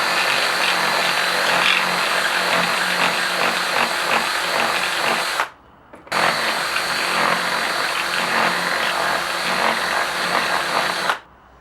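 Power drill boring into a PVC pipe fitting, enlarging the air-inlet hole to tapping size. It runs steadily in two stretches, stopping briefly about halfway through and cutting off near the end.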